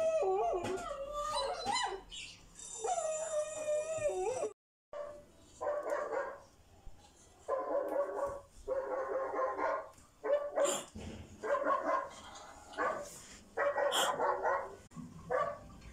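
Recorded dog sounds played back from a tablet: wavering howls for the first few seconds, then, after a brief cut, a string of about eight separate barks.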